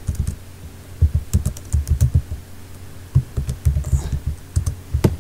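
Computer keyboard being typed on in irregular runs of keystrokes, over a steady low hum.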